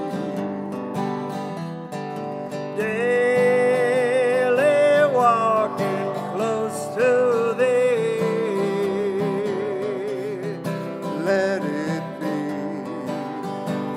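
Hymn music: acoustic guitar strumming chords under a held melody line with vibrato, swelling louder about three seconds in.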